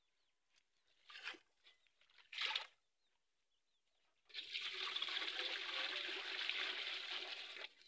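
Water poured from a plastic jerrycan into a plastic basin: a steady stream starting a little after four seconds in and stopping just before the end. Before it, two brief splashes, about one second and two and a half seconds in.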